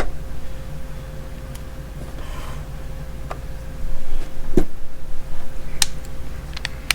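A few light clicks and one duller knock as a cordless impact wrench is handled and set on a scale, over a steady low hum.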